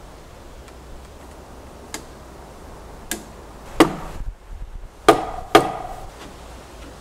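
Sharp knocks on heavy timber beams: two light knocks, then three loud ones in the second half.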